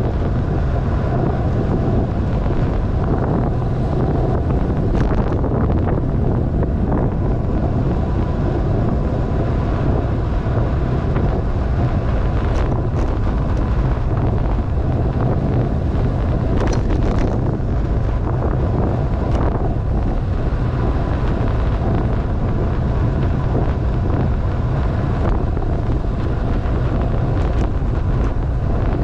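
Wind buffeting the camera microphone on a fast downhill ride, a steady heavy rumble, with a few faint clicks along the way.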